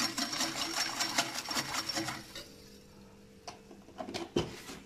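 Wire whisk beating a thin milk mixture in a glass bowl, rapid steady clinking of the wires against the glass that stops about halfway through. A few single clinks and a knock follow near the end.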